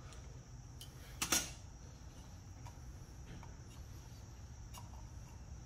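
Small clicks and scrapes of metal pliers working the old gasket out of a plastic oil filter housing, with one louder clack about a second in. A faint steady high hiss runs underneath.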